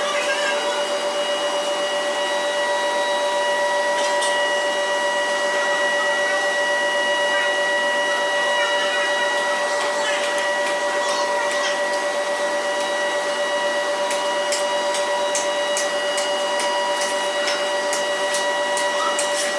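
A workshop machine's electric motor running with a steady whine. Quick sharp ticks come through over the last few seconds.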